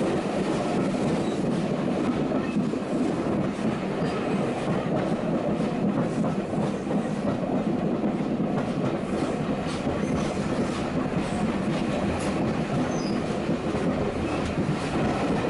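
Heritage steam railway carriage running along the line, heard from inside: a steady rumble with the clatter of wheels on the track.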